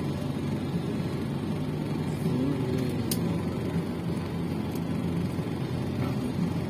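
Car engine idling, heard from inside the cabin as a steady low hum, with a couple of brief sharp ticks about three and five seconds in.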